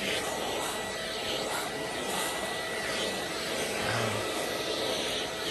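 Oneisall pet grooming vacuum running steadily, its suction motor drawing loose fur through the brush head and hose as it is passed over a dog's coat. The sound is a steady rushing whir with a thin constant whine.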